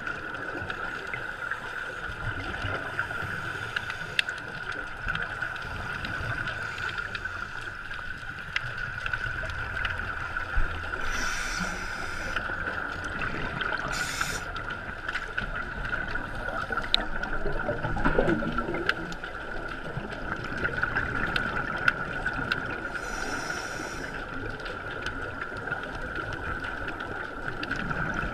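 Underwater ambience picked up through a camera housing: a steady hum and low rumbling, with a few hissing, bubbling breaths from a scuba diver's regulator, several seconds apart.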